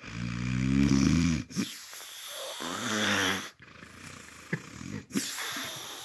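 A sleeping man snoring loudly: a long, rough buzzing snore of about a second and a half, a second shorter one around three seconds in, then quieter rattling breaths.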